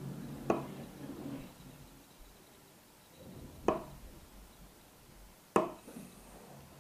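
Three sharp knocks, spaced two to three seconds apart: about half a second in, about halfway through, and near the end.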